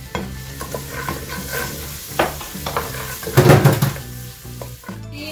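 Diced onion sizzling in hot pork fat in an aluminium pot, stirred with a wooden spoon that clicks and scrapes against the pot, with a louder burst of stirring about three and a half seconds in.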